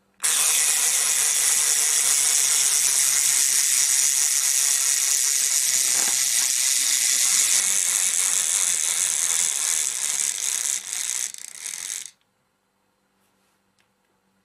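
Toy inchworm's drive mechanism rattling steadily as the toy crawls along, then cutting off suddenly as it stops.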